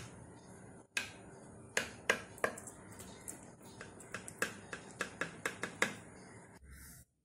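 Kitchen knife cutting through set custard pudding in a glass baking dish, its blade clicking and tapping against the glass in a run of irregular sharp clicks.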